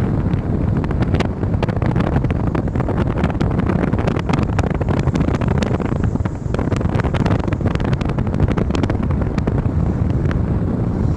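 A vehicle driving, with a steady low road rumble and wind buffeting the microphone, and frequent small rattles and clicks throughout.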